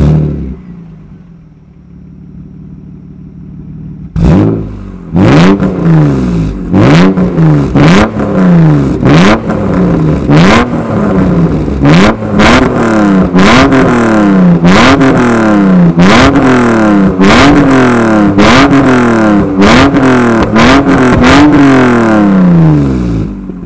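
BMW E36 M3 straight-six heard at its twin-tip exhaust: a loud burst at the very start, a few seconds of idle, then more than a dozen quick throttle blips from about four seconds in, each rev rising sharply and falling back.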